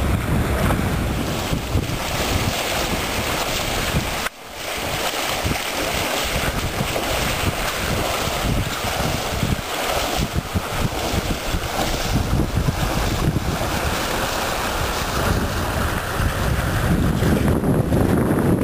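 Wind buffeting the microphone over the rush of waves and water along the hull of a Grampian 30 sailboat under sail, with a brief drop-out about four seconds in.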